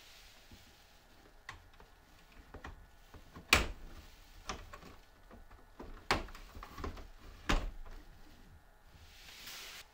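A series of sharp clicks and knocks, the loudest about three and a half seconds in and two more strong ones later, with softer taps between, then a short hiss near the end.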